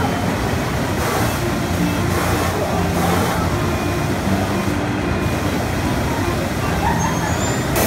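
Steady whooshing din of the air blowers in an indoor foam-ball play structure, with faint children's voices underneath.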